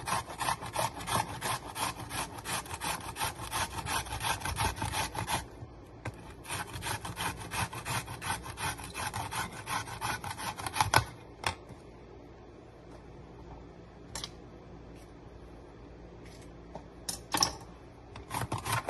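Cucumber being grated on a metal hand grater over a glass bowl: quick rasping strokes, several a second. There is a short break about five seconds in, and the grating stops about eleven seconds in, leaving only a few light taps and clicks near the end.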